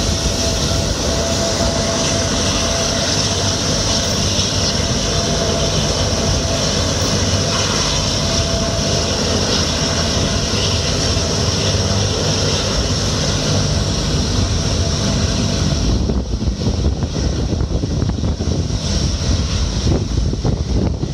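Convair 580's twin Allison turboprop engines running as the aircraft taxis: a steady high whine over a low rumble. Near the end the whine drops away and wind buffeting on the microphone takes over.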